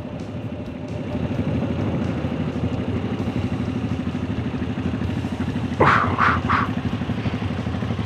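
Moto Guzzi V85 TT's air-cooled transverse V-twin running at low speed and idling as the bike rolls to a stop, a steady low pulsing beat heard from on board. About six seconds in, three short loud sounds cut across it in quick succession.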